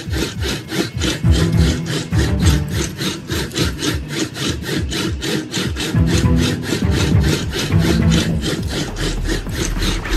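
Background music with a steady, fast rhythm of scratchy strokes, about five a second, over held low bass notes.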